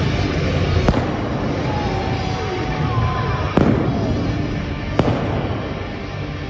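Indoor arena pyrotechnics going off, with flame jets and sparkler fountains and three sharp bangs about a second, three and a half seconds and five seconds in, over loud music.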